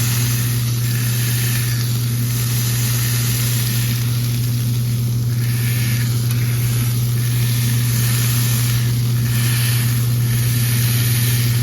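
Chicken thighs and a beef burger patty sizzling on a flat-top griddle, the hiss swelling and fading every second or two over a steady low hum.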